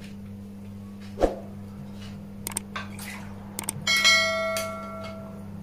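Tableware clinks, then a small glass bowl rings after a sharp clink about four seconds in, its ringing tone fading away over a second and a half. A single knock comes earlier, about a second in.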